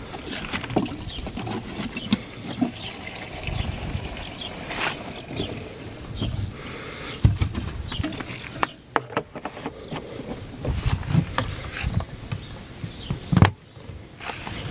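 Irregular clicks, knocks and low thuds of parts and tools being handled, with faint liquid sounds.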